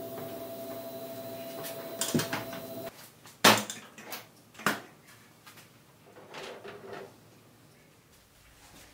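Wire rack clattering against a sheet-metal cabinet as it is slid in, then the metal cabinet door shut with a sharp bang about three and a half seconds in and a second knock just after. A steady hum stops abruptly about three seconds in; faint small clicks follow.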